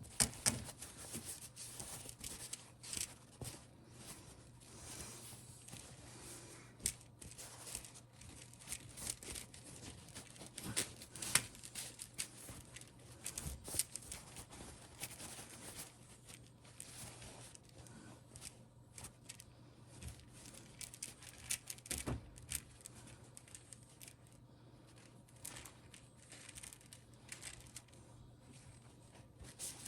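Irregular rustling, scraping and sharp little clicks of hand work on a fly rod's rear grip during repair, with a faint steady low hum underneath.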